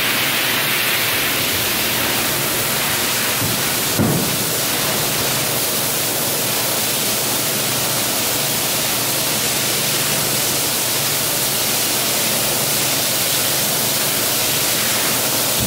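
Steady rushing of running or spraying water on a rug wash floor, with a single knock about four seconds in.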